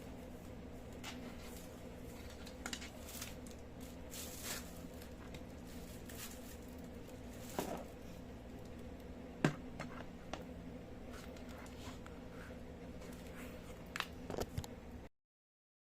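Scattered light clicks, taps and rustles of items and packaging being handled, over a steady low electrical hum; the sound cuts off abruptly near the end.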